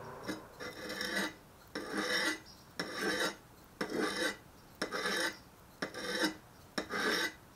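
Sharpening stone scraping along the steel edge of a folding survival shovel in rhythmic gritty strokes, about one a second, on the stone's coarse side.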